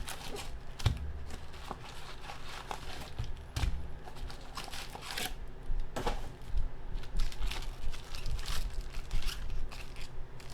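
Crinkling and tearing of a 2015 Topps Jumbo Football card pack wrapper being ripped open and handled, in irregular crackles and rustles.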